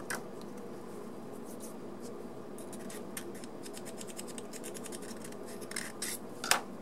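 Small flat file scraping flash off a model locomotive's metal bottom plate in quick light strokes, most of them bunched around the middle, with a few sharper clicks near the end.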